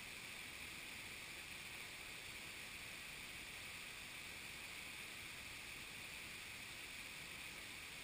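Steady rush of stream water, an even hiss that does not change.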